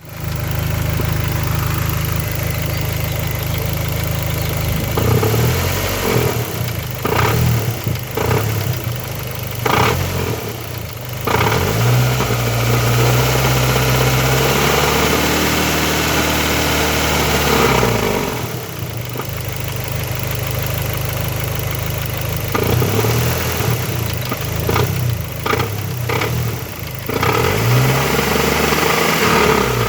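Dodge SRT-4's turbocharged 2.4-litre four-cylinder engine idling, then revved in several short blips and one longer hold of a few seconds, falling back to idle each time. It is making a strange noise after its broken timing belt was replaced.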